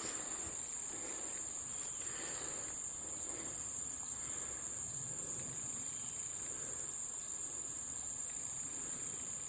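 Steady high-pitched drone of an insect chorus, such as crickets, running unbroken.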